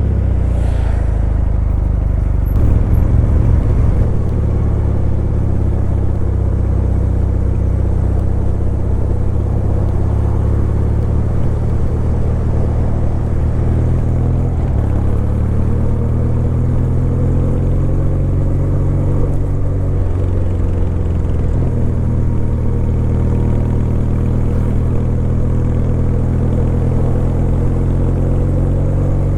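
Kawasaki W800's air-cooled parallel-twin engine running while riding, a low steady exhaust note whose pitch rises and falls with the throttle. Louder and choppier for a moment about three seconds in.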